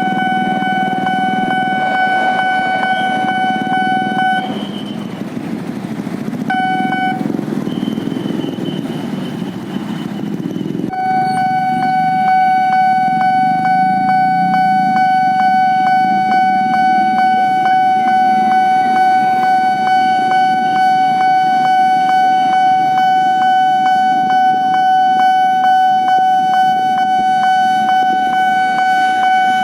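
Railway level-crossing warning signal sounding a steady electronic tone with fine regular ticks, over the low rumble of motorcycles and cars waiting at the crossing. About four seconds in the tone breaks off for several seconds under a hiss, then comes back.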